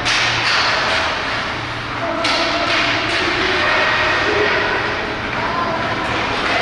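Ice skates scraping and carving on rink ice during hockey play, with sharp scraping stops at the start and about two seconds in.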